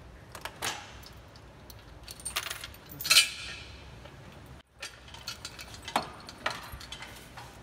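Steel lifting chain and hook of an engine crane clinking and rattling as they are unhooked from an engine, in a few separate clinks with one louder ringing clink about three seconds in.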